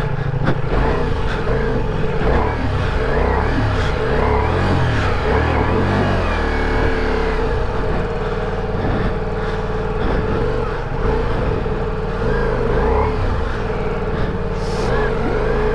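Ducati Multistrada V4 Rally's V4 engine revving up and down again and again as the bike is worked out of slick, sticky mud it is stuck in.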